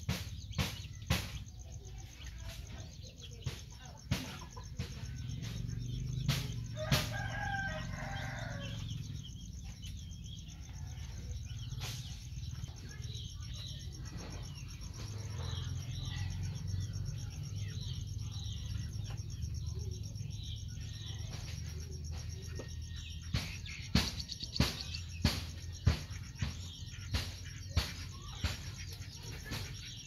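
Chickens in the background: a rooster crows once about seven seconds in, and hens cluck, over a low steady hum. A run of sharp clicks, about two a second, comes near the end.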